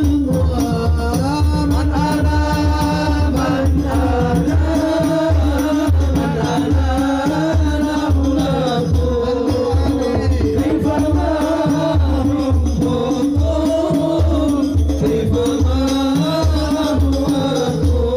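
Men singing a syair, a sung devotional poem, into microphones, chant-like, over a steady low drum beat and rattling percussion.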